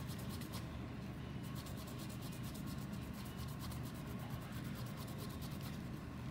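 A cloth dampened with lens-cleaning fluid rubbed quickly and evenly over the rubber ring of a Samyang 85mm f/1.4 manual lens, several strokes a second, scrubbing off the white bloom that forms on the rubber.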